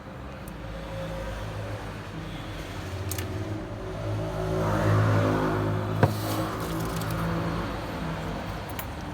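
Low, steady hum that swells to its loudest about five seconds in and then fades, with a single sharp click about six seconds in.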